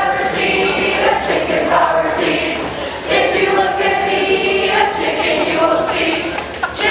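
A group of people singing together in unison, in phrases with short breaks between them.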